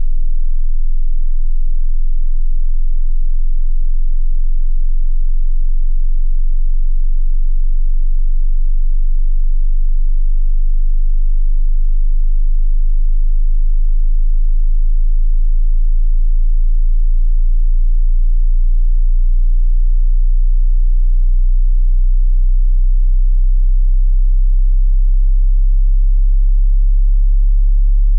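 Hearing-test sine tone at a very low pitch: a pure, deep, steady hum near the bottom of the range of hearing.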